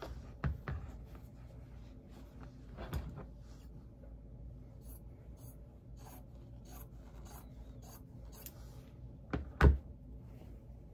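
Fabric scissors cutting cloth in a run of short, crisp snips between about five and eight and a half seconds in, with the fabric rustling and sliding over a cutting mat as it is handled. A loud thump near the end is the loudest sound.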